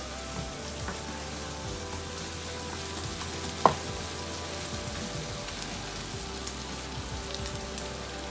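Garlic and onion sizzling steadily in oil in a pan on an electric burner, a low sizzle from a burner the cook finds too weak even on high to caramelize the onion. A single sharp knock about three and a half seconds in.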